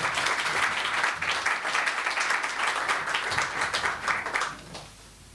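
Audience applauding, a dense patter of many hands clapping that dies away about four and a half seconds in.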